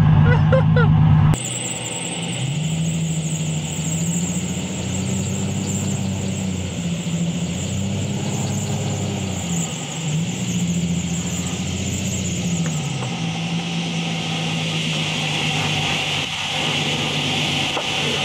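Nissan 300ZX's V6 engine running as the car is driven, its pitch rising and falling several times with the throttle. It starts after an abrupt cut about a second in.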